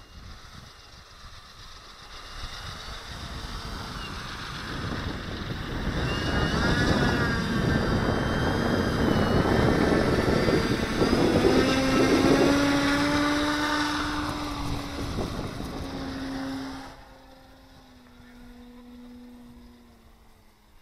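Model autogyro's motor, propeller and rotor swelling as it comes in close over the field, with a whine that slides slowly down in pitch. The noise cuts off sharply about three-quarters of the way through.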